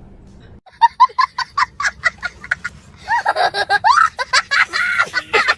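A person laughing: a run of short, high 'ha' sounds at about five a second starting near the first second, then a longer, louder stretch of laughing mixed with voice from about three seconds in.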